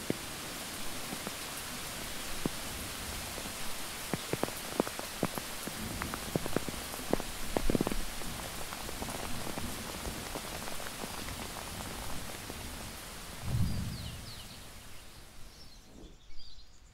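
Steady heavy rain falling, with a few sharp close knocks in the middle and a brief low rumble about two-thirds of the way through. The rain fades near the end, giving way to faint bird chirps.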